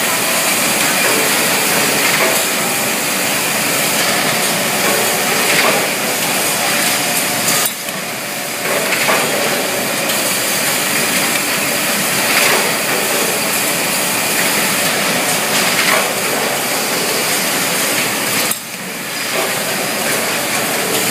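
Automatic sanding machine for diamond saw blades running, a steady grinding hiss with a louder stroke every couple of seconds. The sound drops briefly twice.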